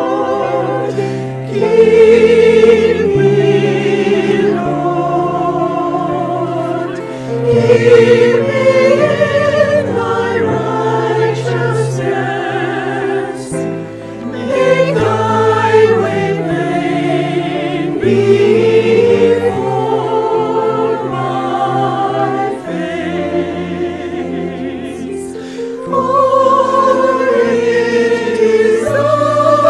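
Church choir singing a sacred anthem over sustained instrumental accompaniment, with wavering held notes. It swells louder about two seconds in, again around eight seconds, and near the end.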